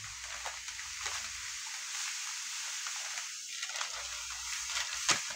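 Dry grits pouring in a steady stream from a bag into a plastic jar: an even hiss, with a short click near the end.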